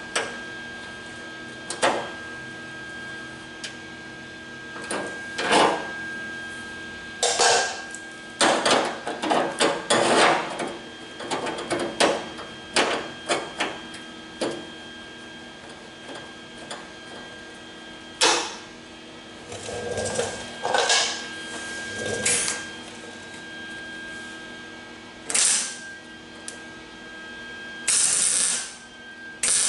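Metal clicks and knocks of locking pliers being clamped and shifted on a steel car door skin, in irregular clusters, with a faint steady whine underneath. Near the end a short burst of welding-arc crackle as a tack weld is laid on the door skin.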